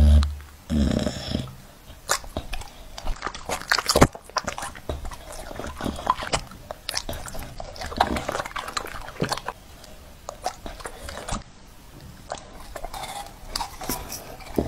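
A dog eating soft fruit fed to it from a fork and spoon, chewing and licking with many quick wet clicks, a louder burst in the first second and a sharp click about four seconds in.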